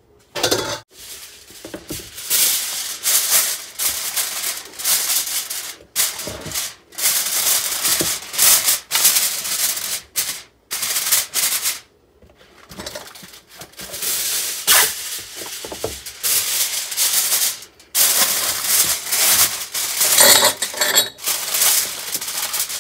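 Aluminium foil crinkling and crackling in irregular bursts as a sheet is spread over a glass baking dish and crimped down around its rim.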